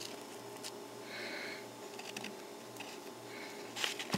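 Quiet room tone with a steady faint hum, and light clicks and rustles as a small plastic model-kit part is handled over a paper instruction sheet, with a few sharper taps near the end.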